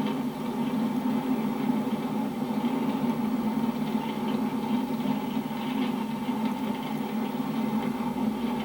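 Car engine and road noise: a steady, even hum while driving.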